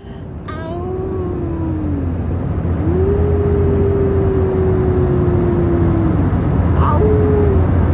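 Steady drone of an airliner cabin in flight, swelling in over the first couple of seconds. Over it a baby coos in drawn-out tones: a short falling one, then a long held one of about three seconds, and a brief one near the end.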